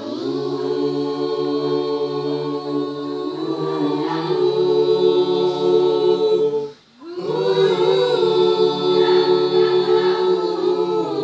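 School choir singing long held chords in several parts, breaking off for a moment about seven seconds in and then coming back in.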